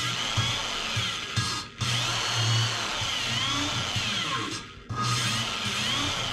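Power drill spinning an engine valve, chucked by its stem, to lap it into its seat in an '85 Nissan 720 cylinder head. The drill runs in bursts with a whine that rises and falls in pitch. It stops briefly twice, once a little under two seconds in and again past the middle.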